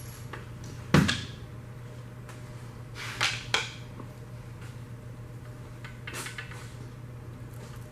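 Knocks and clanks of tools and engine parts being handled during an engine teardown: one sharp knock about a second in, two lighter clanks a little after three seconds, and faint clicks around six seconds, over a steady low hum.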